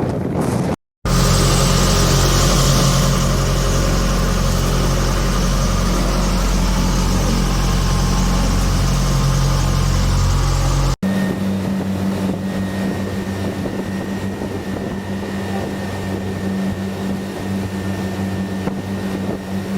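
Steady engine drone of a vessel under way, a low even hum with rushing wind and water noise over it. It cuts abruptly about a second in and again around 11 s. After the second cut the hum is a little higher and a faint steady high whine runs above it.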